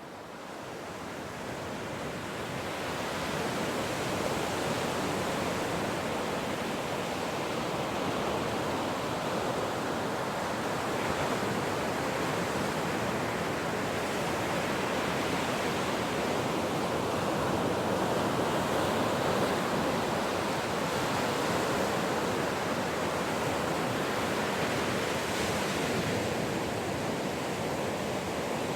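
Ocean surf: a continuous rushing wash of breaking waves, swelling up over the first few seconds and then holding steady.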